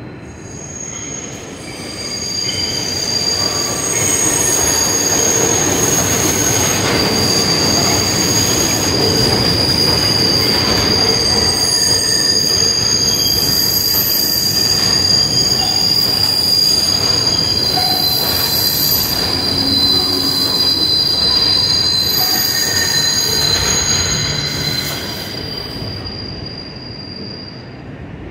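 An IRT subway train passes along the elevated White Plains Road Line structure, its steel wheels squealing on the rails. The sound builds over the first few seconds, holds with several steady high-pitched squeals over the rumble of the train, then fades near the end.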